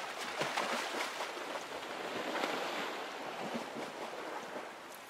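A grizzly bear splashing through a shallow river as it lunges after salmon: a run of splashes that eases off near the end, over the steady rush of the river.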